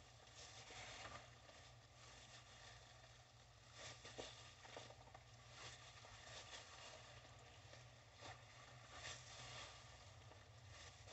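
Near silence, with faint, irregular wet squishing and handling of raw pig intestines (chitterlings) being pulled apart by gloved hands, over a low steady hum.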